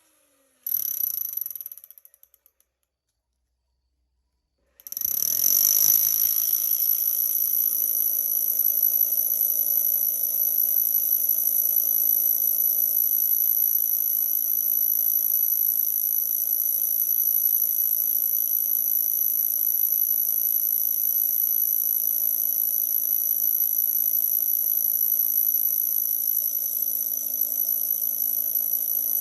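Large electric concrete drill for rebar anchoring: a short run about a second in that winds down, then, after a pause, started again and running steadily with a high whine.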